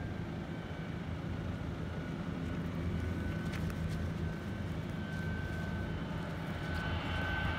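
Twin-engine jet airliner on final approach: a steady low engine rumble with a thin high whine that rises a little in pitch and grows louder as the plane draws nearer.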